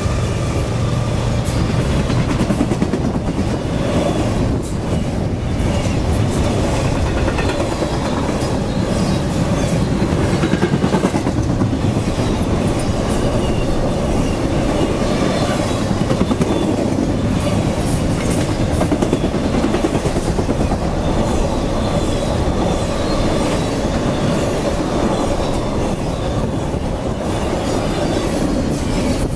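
Intermodal freight cars, trailers on flatcars and double-stacked containers in well cars, rolling past close by. The wheels rumble steadily on the rail with a clickety-clack over the joints, and faint wheel squeal comes and goes.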